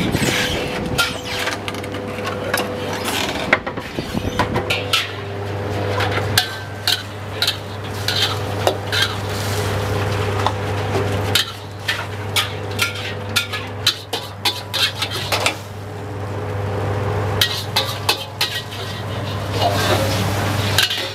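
Metal wok ladles and utensils scraping and clanking against steel woks in many quick strikes, with food sizzling, over a steady low hum.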